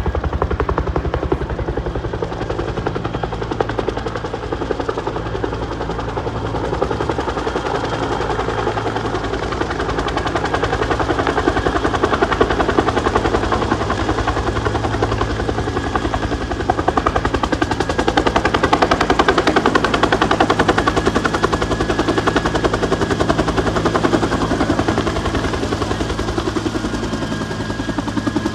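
Forest service helicopter's rotor beating in rapid, even pulses over a steady engine hum. It grows louder about midway and again about two-thirds through.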